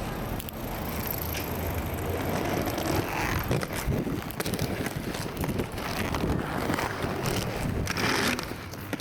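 Hard skate wheels rolling over rough pavement: a continuous rumble dotted with small clicks and knocks.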